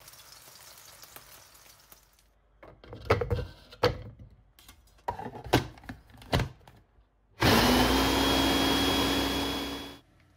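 Hard plastic clunks and clicks as a blender's blade assembly is fitted and twisted onto the jar. Then the blender motor runs loud and steady for about two and a half seconds, its pitch rising briefly as it spins up, and stops.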